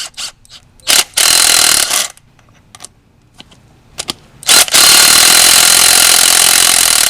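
Impact wrench hammering at a suspension bolt in two bursts: a short one about a second in, then a longer run of nearly three seconds that stops at the end. It is loosening a bolt to free the old strut.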